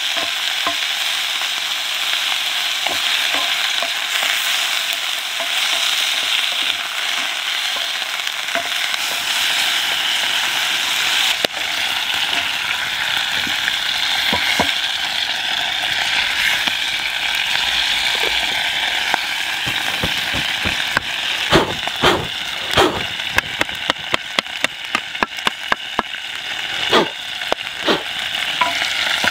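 Meat frying in oil in a cast-iron Dutch oven, stirred with a wooden spatula: a steady sizzle, with a run of sharp clicks and knocks in the last third.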